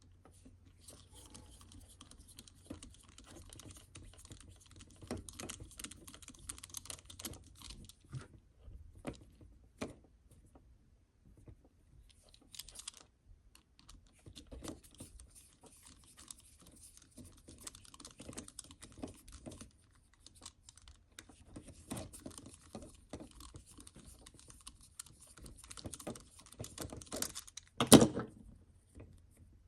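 Small clicks and scrapes of hand tools and tiny screws on the plastic housing of a 1:12 RC crawler's portal axle as it is being taken apart, irregular and light, with one louder click near the end.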